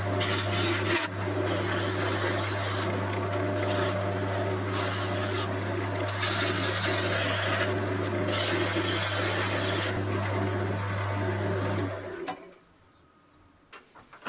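Wood lathe running with a steady motor hum while a flat turning tool cuts the spinning African padauk handle, a continuous rasping scrape. The sound cuts off suddenly about 12 seconds in, leaving near quiet with a few faint clicks.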